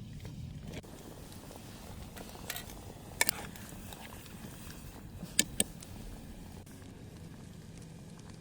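Reheating leftover pasta: a few sharp clinks of a utensil against a pot, the loudest about three seconds in and a quick pair about five and a half seconds in, over a steady low rumble.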